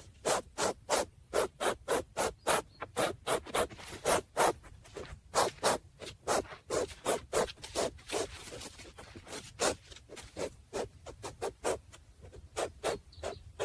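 Scratchy footsteps on dry ground, a steady run of about three short strokes a second.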